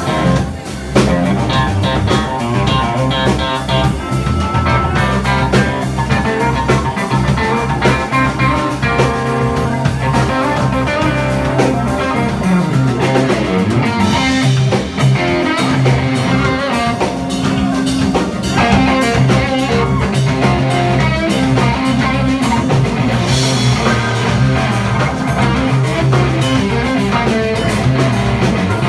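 Live blues-rock played by an electric guitar over a Ludwig drum kit, with loud, continuous guitar lines and two cymbal crashes, one about halfway through and one later on.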